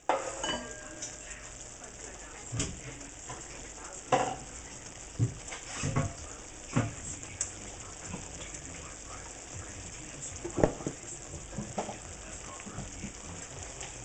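Curry sauce of coconut milk and cream, with shrimp and snow peas, bubbling in a skillet as it reduces: a steady sizzle with a few scattered pops.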